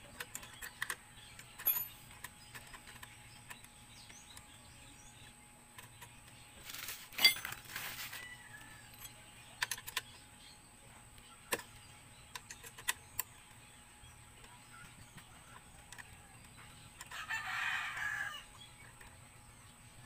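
Scattered metallic clicks and clinks of hand tools and the shift-linkage parts being fitted by hand, with a louder clank about seven seconds in. A rooster crows once, briefly, near the end.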